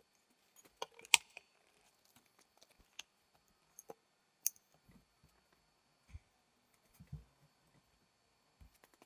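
Sparse, faint clicks and soft knocks, with one sharp click about a second in being the loudest, and a few dull thumps in the second half.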